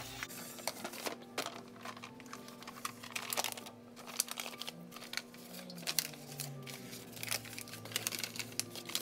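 Sheets of baking paper crinkling and rustling in irregular crackles as they are handled, folded and pressed around rolled pastry in a tart tin.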